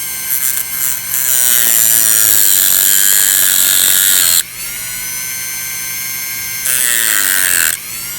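A small high-speed power tool whines as it cuts a screwdriver slot into the top of a broken stud in a model engine. The pitch sags and recovers as it bites. It is loudest from about one to four seconds in, drops suddenly, and rises again briefly near the end.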